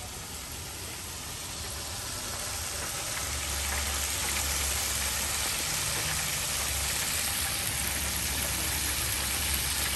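Hot oil sizzling steadily in a Winco electric deep fryer, growing louder over the first few seconds, with a low rumble underneath from about three seconds in.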